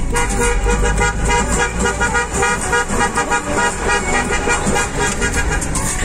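Car horns honking in city traffic, heard from inside a moving car over its engine and road noise.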